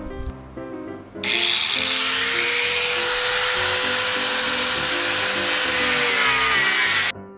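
Electric angle grinder with a cutting disc running through corrugated sheet: a loud, steady high-pitched whine and hiss that starts about a second in, sags slightly in pitch near the end, then stops abruptly. Background music plays throughout.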